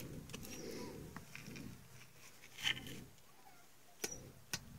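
Faint rustling and handling noises of a person moving through dry brush. There is a brief louder scrape about two and a half seconds in and two sharp clicks near the end.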